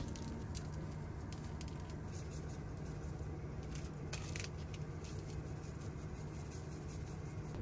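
Faint patters and light ticks as pepper is shaken from a small plastic shaker over raw pork slices in a foam tray, with plastic wrap rustling, over a steady low hum.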